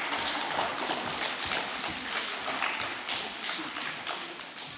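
Audience applauding, slowly dying away near the end.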